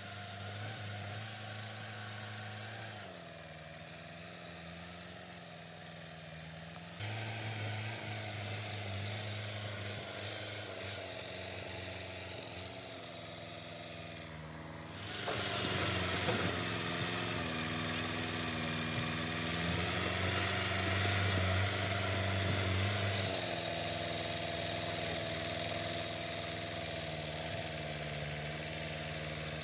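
LKT Turbo forestry skidder's diesel engine working under load as its front blade pushes soil and stones to cut a forest track. The engine note shifts with the load several times, and runs louder with a rougher rushing noise from about halfway through.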